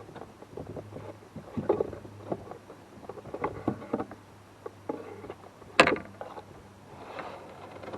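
Irregular knocks and clatters of handling aboard a fishing kayak, with one sharp loud knock about six seconds in, over a faint steady low hum.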